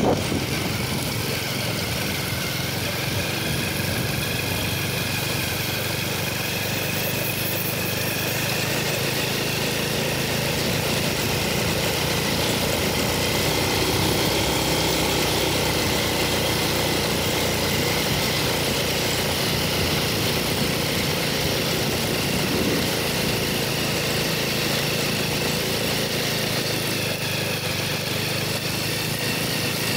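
A steady, unbroken mechanical drone, like an engine running.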